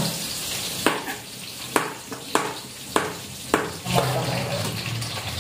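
Oil sizzling steadily in a wok as shallots, garlic, turmeric and candlenuts fry, with a run of about seven sharp knocks, roughly one every half second, during the first four seconds.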